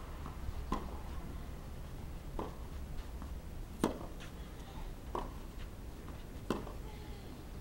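Tennis rally on a clay court: a ball struck back and forth with rackets, five sharp pops about a second and a half apart, the loudest nearly four seconds in.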